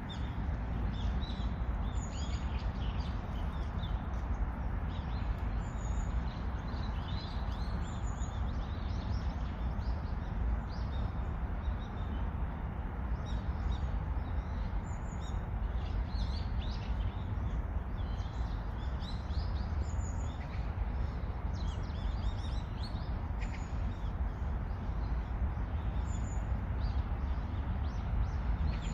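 Several small birds chirping and calling, with short repeated high notes every couple of seconds, over a steady low background rumble.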